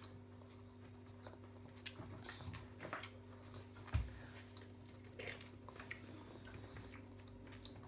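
Quiet chewing of noodles with scattered faint clicks of chopsticks and a fork against a ceramic bowl, over a steady low hum. A soft low bump about four seconds in.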